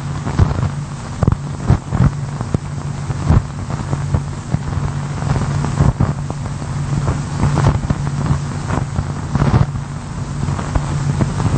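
A steady low hum under a noisy hiss, with scattered knocks and clicks.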